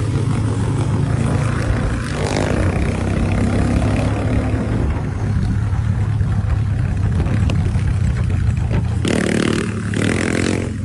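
Motorcycle engine running steadily under road traffic noise, with a brief higher-pitched sound about nine seconds in. The sound cuts off abruptly at the end.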